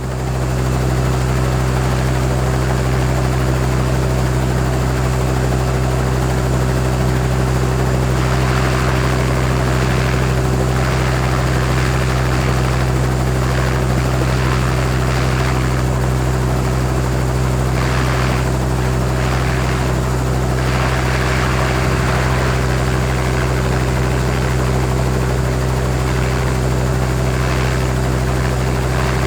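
Helicopter idling: a steady low hum of fixed tones under a broad hiss, the hiss swelling now and then in the middle.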